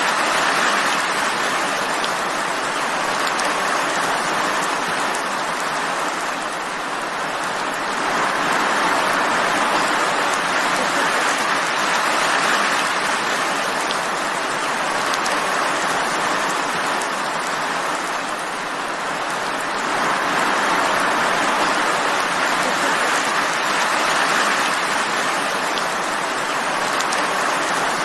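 Steady rain falling, an even hiss that swells and eases slightly every several seconds.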